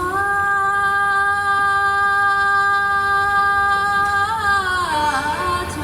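A woman's solo singing voice, in Tibetan mantra-style song, holding one long steady note for about four seconds. Near the end it slides down with a wavering ornament and settles on a lower note.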